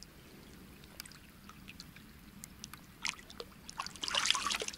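Shallow water splashing from about three seconds in, as a small wild carp released by hand is let go and swims off. Before that there are only faint scattered ticks of light rain on the water.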